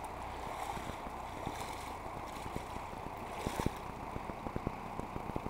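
Steady rushing of river water, with scattered small clicks and taps.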